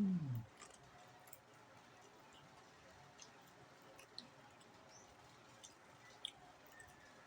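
A person chewing food close to the microphone: faint, scattered clicks and smacks of the mouth. A short low hum of the voice falls in pitch at the very start.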